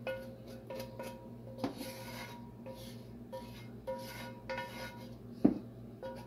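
A utensil scraping and stirring in a metal cooking pot, with several knocks against the pot that leave it ringing briefly. The sharpest knock comes about five and a half seconds in.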